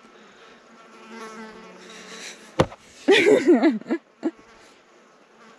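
A fly buzzing close to the microphone: a faint steady buzz that swells into a loud, wavering buzz about three seconds in as it passes right by, then stops. One sharp tap sounds just before the loud pass.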